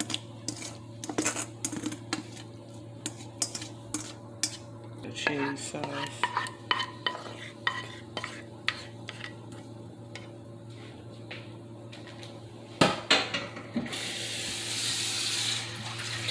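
A spoon clinking and scraping against a metal pot and colander as macaroni and cheese sauce are scooped and stirred into a foil baking pan, with many short clicks and two louder knocks about three-quarters of the way through. A steady rushing noise starts near the end.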